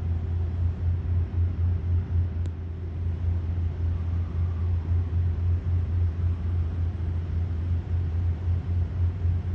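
Steady low mechanical rumble, like a nearby engine or machinery running, with a slight pulsing to it. There is one faint click about two and a half seconds in.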